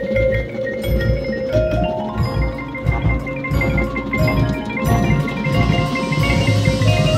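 Drum and bugle corps playing live: ringing mallet percussion such as marimba and xylophone over repeated low drum hits and held tones. A high cymbal-like wash builds over the last couple of seconds.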